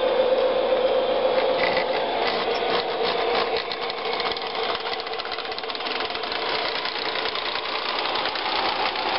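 MTH DCS-controlled O-gauge model locomotive running on the layout's track, its motor running steadily, with a run of rapid clicks about two to four seconds in.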